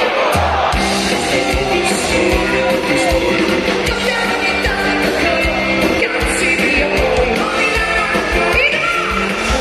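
Live pop-rock band playing loudly, with a woman singing lead over electric guitar and drums, as heard from among the crowd.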